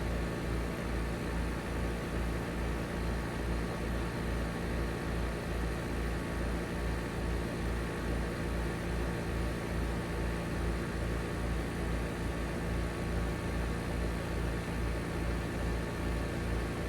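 Outdoor heat pump condenser unit running steadily: a hum with a low throb pulsing about two or three times a second.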